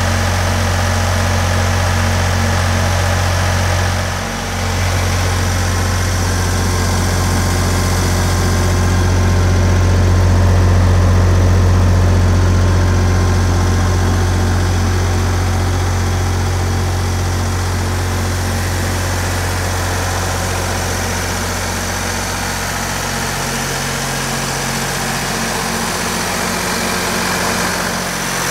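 The Perkins diesel engine of a Miller Big Blue 402 P welding generator running steadily with an even, deep hum.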